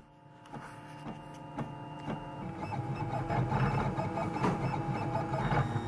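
Printrbot Simple Metal 3D printer running a print: its stepper motors whine in several steady tones that shift in pitch with each move of the print head, getting louder after the first couple of seconds.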